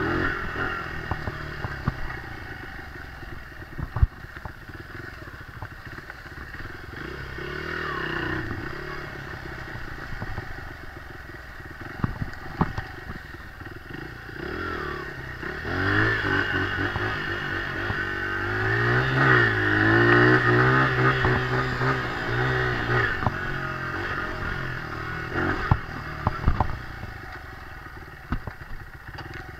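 Dirt bike engine running as it is ridden, the throttle rising and falling, revved harder and louder for several seconds about halfway through. A few sharp clattering knocks stand out along the way.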